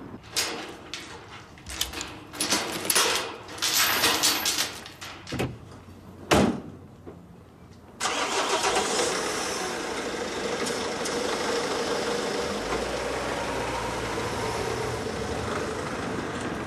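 Scattered knocks and clicks, then from about halfway a vehicle engine running steadily, starting abruptly and holding an even level, with a low rumble.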